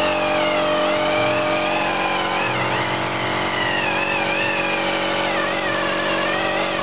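Air-powered polisher with a foam pad running against a motorcycle's painted fairing: a steady whine whose pitch wavers up and down as the pad is worked over the paint, over a steady lower hum.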